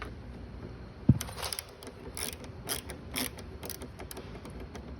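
Hand tool backing out the Torx T20 screw that holds a door handle. There is a sharp knock about a second in, then a run of short mechanical clicks at about two a second.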